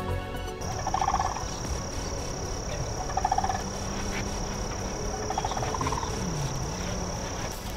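Background music breaks off just after the start. Then come three short rattling animal calls about two and a half seconds apart, over a steady high-pitched whine.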